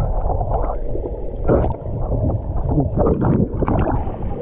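Muffled sloshing and gurgling of water against a GoPro held in or at the surface of the water, in irregular surges.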